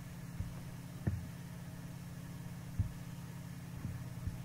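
Steady low hum and faint hiss of the recording's background, with a few short, soft low thumps, the clearest about a second in.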